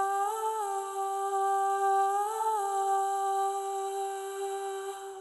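A segment-transition jingle: one long held hummed note that steps briefly up in pitch twice and fades out near the end.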